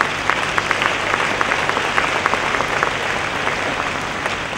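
Audience applauding: many hands clapping, strongest in the first few seconds and thinning out near the end.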